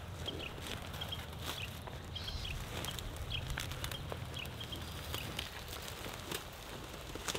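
A small bird chirping over and over in short, high, hooked notes, with scattered light clicks and a sharper knock near the end.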